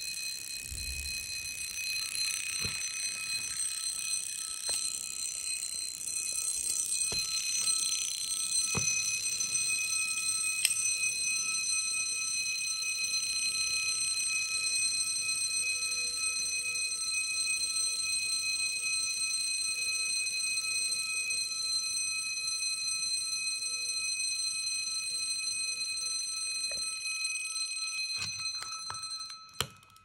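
Alarm pocket watch's built-in alarm ringing: a steady, high ringing that cuts off about a second before the end.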